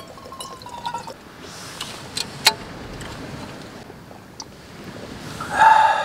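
Wine being poured from a small container into a cup: a short trickle with a few clicks of the container in the first second, and a sharp click about two and a half seconds in. A brief loud pitched tone comes near the end.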